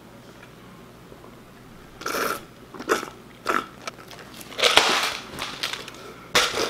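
Drink sucked up through a straw from a plastic cup: several short, noisy sips and slurps starting about two seconds in, the loudest a little past the middle.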